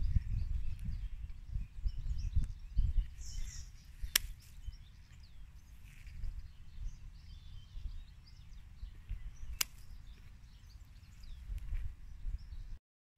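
Secateurs snipping through a thin green stick: two sharp clicks, about five and a half seconds apart. Under them, low wind rumble on the microphone, heaviest in the first few seconds, and faint birdsong.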